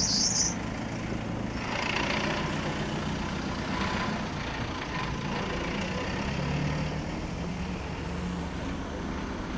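Motor vehicle engines running with a steady low hum over faint road noise.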